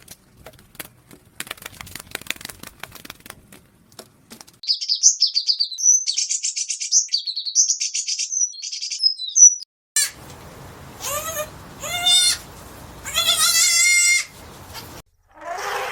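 Farm animal sounds in sequence: scattered clicks for the first few seconds, then about five seconds of high-pitched chirping, then three bleats, the last one longest.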